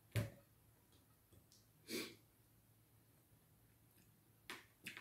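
Quiet close-up eating sounds of a person eating fufu and okra soup by hand: a sharp mouth smack just after the start, a short breath about two seconds in, and two light clicks near the end.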